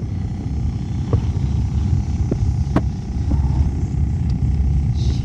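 A small skiff's motor running steadily: a low rumble with a faint steady whine over it, and a few light knocks.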